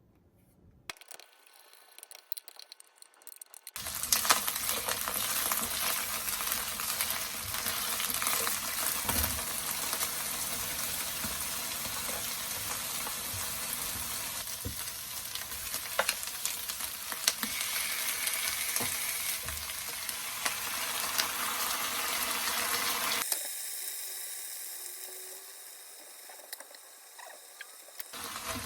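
Food sizzling in a frying pan while being stirred, with sharp clicks of the utensil against the pan. The sizzle starts suddenly about four seconds in and thins out abruptly near the end.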